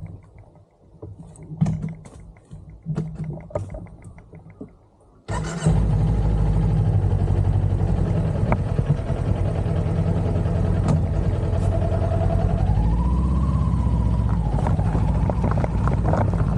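A few seconds of quiet small clicks and knocks, then the sudden, steady running sound of a Kawasaki Z400's parallel-twin engine under way, mixed with road and wind noise. About two-thirds of the way through, the engine note rises and then holds.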